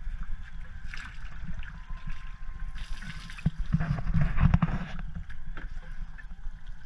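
Low rumble of wind and water around a fishing boat on open sea. About three to five seconds in comes a louder stretch of knocks and rustling.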